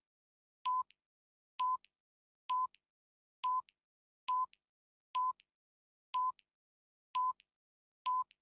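Short electronic beeps, about one a second, nine in all. Each is a single steady mid-pitched tone with silence between.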